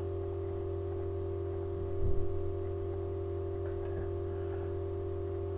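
A steady droning hum made of several held tones, with one dull low thump about two seconds in.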